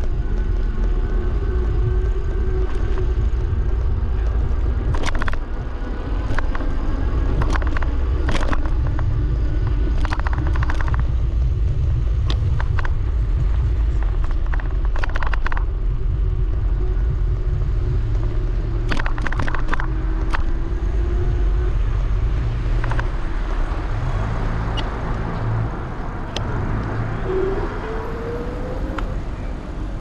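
Ride noise from a camera mounted on the handlebars of an Apollo Explore electric scooter: a steady low rumble of wind and road, broken by scattered clicks and rattles, with a short rising whine near the end.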